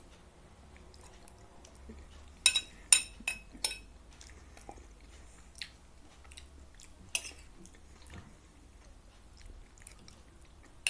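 A person chewing and eating taco gratin close to the microphone, with mouth sounds. There is a quick run of four or five sharp clicks about two and a half seconds in and another single click about seven seconds in.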